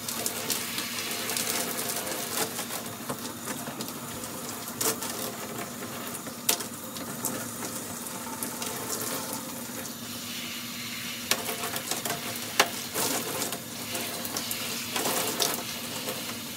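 Handheld shower head spraying water onto shampooed hair, rinsing out the lather: a steady hiss of running water with a few sharp knocks and clicks.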